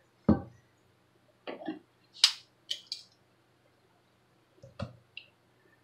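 A stainless steel mixing bowl set down on the counter with a thud, followed by a few short knocks and rustly handling sounds, and a softer thud near the end as a wing goes into the bowl.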